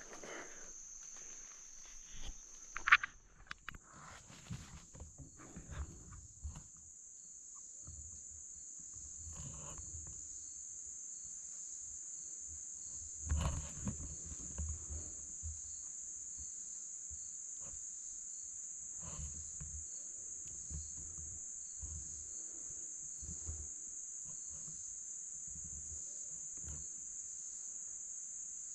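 Steady high-pitched insect chorus, with a fainter call pulsing evenly beneath it. Scattered low thuds and rustles come and go, and a single sharp click stands out about three seconds in.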